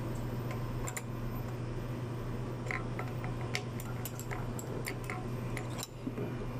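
Light clicks and taps of metal parts of a frozen beverage machine being fitted together by hand, scattered and coming thickest in the second half, over a steady low hum.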